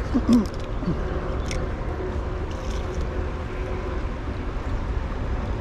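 Steady low rumble of wind buffeting the microphone, with a brief vocal sound just after the start and a few faint clicks.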